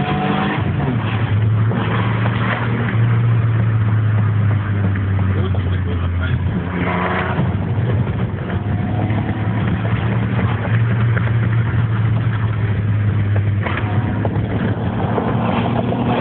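Alfa Romeo 155 engine heard from inside the cabin, pulling under load with a steady drone; its pitch climbs as it accelerates at the beginning and again near the end.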